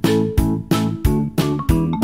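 Upbeat intro music: keyboard chords over a steady beat of about three hits a second.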